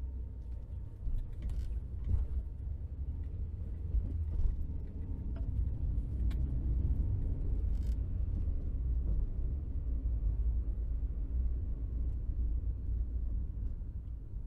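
Car interior ambience: a steady low rumble heard from inside the cabin, with a few brief clicks or creaks.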